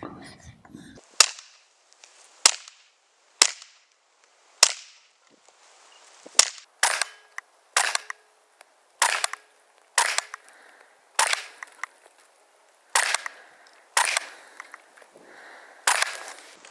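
Suppressed KRISS Vector .45 SBR with a SilencerCo Omega 45K can, fired semi-automatically: about fifteen shots at an uneven pace, roughly one a second with a few in quicker pairs, each a short sharp crack with a brief echo.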